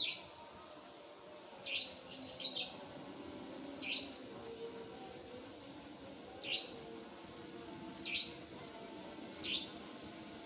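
Short, sharp bird chirps, about seven single calls spaced a second or two apart, over a faint, steady background hum.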